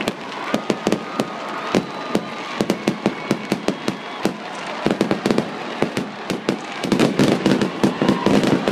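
Aerial fireworks going off: a rapid, irregular run of crackling bangs and pops, which becomes louder and denser about seven seconds in.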